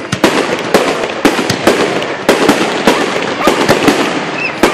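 Aerial firework shells launching and bursting in a rapid string of sharp bangs, about three or four a second, over a continuous crackle.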